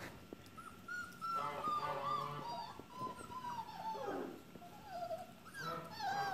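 Colorado Mountain Dog puppy whines and yelps: a run of high-pitched calls starting about a second in, some of them sliding downward in pitch.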